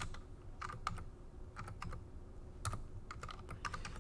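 Calculator buttons being pressed to key in a calculation: about a dozen short plastic clicks at an irregular pace, some in quick pairs.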